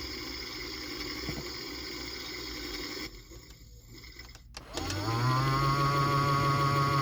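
AEG Lavamat washing machine in its final spin: the motor runs steadily, stops about three seconds in, then starts again and quickly winds up to a steady, louder whine as the drum gets back up to spin speed.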